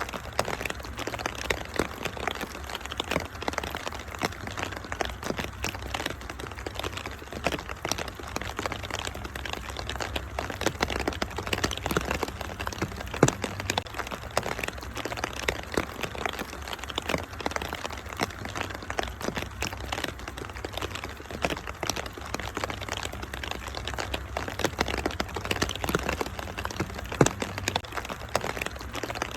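Wood fire in a fireplace crackling, with many sharp pops several times a second, over a steady hiss of rain and a steady low rumble.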